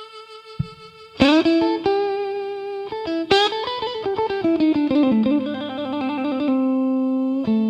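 Instrumental Delta blues: a held harmonica note trails off, then about a second in a guitar plays a plucked phrase that steps down and settles on a long low note.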